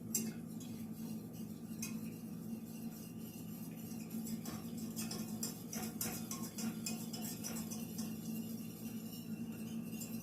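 Wire whisk stirring milk into a butter-and-flour roux in a saucepan, its wires clicking and scraping against the pan in quick strokes, with a steady low hum underneath.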